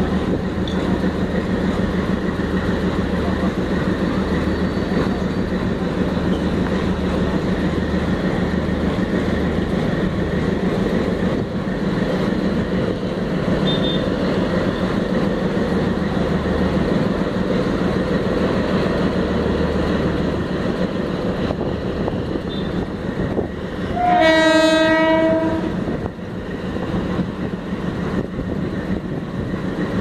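WDG3A ALCO diesel-electric locomotive's engine running with a steady low drone as it moves its train slowly. About four-fifths of the way in comes one horn blast of about a second and a half, the loudest sound.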